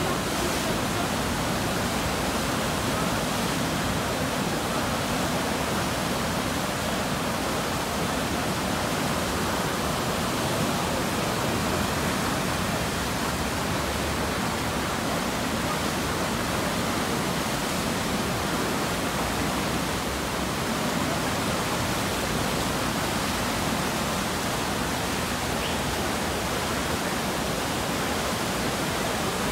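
Churning whitewater of a river standing wave, rushing steadily and evenly.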